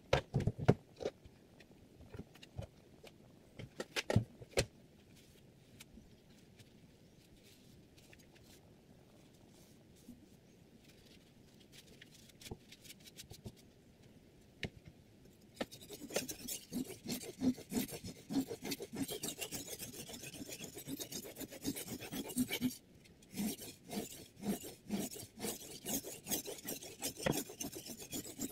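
Scattered knocks and clicks as the whetstone and knife clamp are handled. From about halfway, a steel knife blade rasps in quick back-and-forth strokes across a water whetstone in a Hapstone T1 guided sharpener, sped up threefold.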